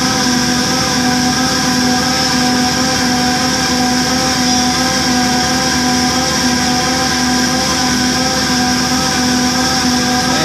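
Air motor of a line boring machine turning the boring bar and cutter, running steadily with a high hiss and several steady tones.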